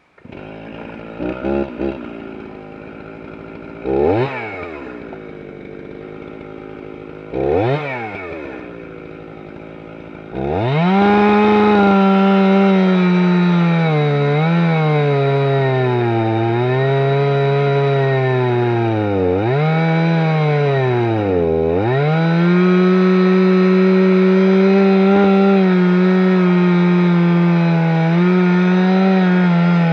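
Stihl two-stroke chainsaw idling, revved briefly twice, then held at full throttle from about ten seconds in while cutting into a tree stump. Its pitch sags and recovers several times as the chain bites into the wood.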